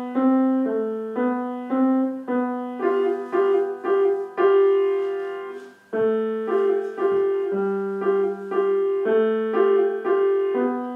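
Piano playing a slow, simple tune of single notes, about two a second, each struck and dying away; the playing breaks off briefly about six seconds in and then starts again.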